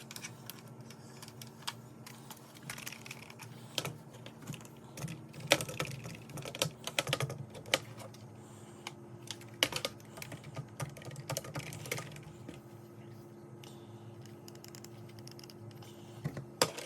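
Keys clicking on an Anko wireless keyboard, pressed in irregular clusters with pauses between, over a faint steady hum.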